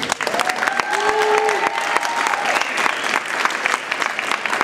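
Audience applauding steadily, with a couple of people giving long drawn-out cheers in the first two or three seconds.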